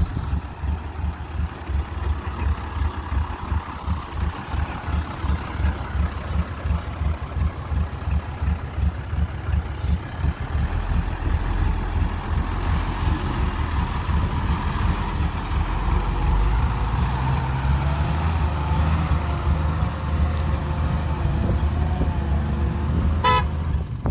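Heavy diesel engine of earthmoving machinery running under load, with a deep, pulsing rumble and a short horn toot near the end.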